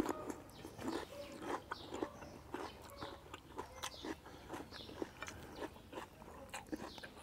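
Two people chewing raw cucumber and a pounded mushroom salad, with frequent irregular crisp crunches.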